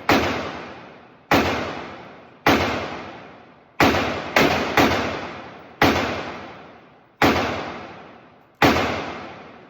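Semi-automatic pistol fired nine times, mostly about a second apart with a quick group of three near the middle. Each shot rings out with a long echo.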